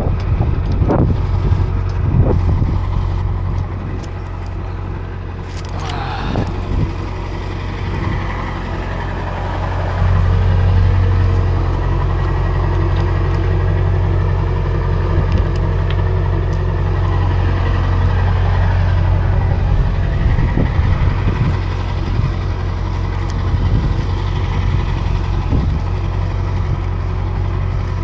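A motor or engine running steadily with a low hum, getting louder about ten seconds in. Scattered knocks and rustles sound over it.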